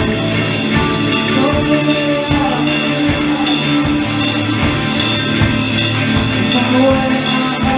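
Live rock band playing, with a drum kit keeping time under held instrument tones.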